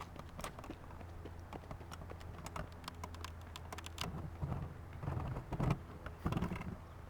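Running footsteps: a quick irregular patter of crunching clicks, with heavier thumps in the second half.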